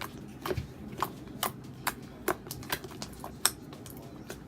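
Freshly made white glue slime being squeezed and handled by hand, giving a run of sharp wet clicks and pops at roughly two to three a second.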